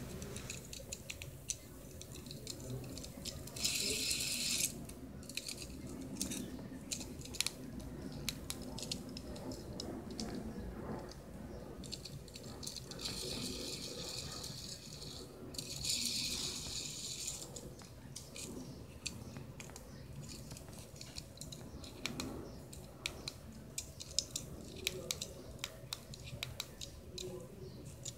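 A light-up plastic fidget spinner handled and spun: irregular clicks and light rattles from the plastic body and its bearing. A few bursts of hissing rustle come and go, one short one near the start and a longer one around the middle.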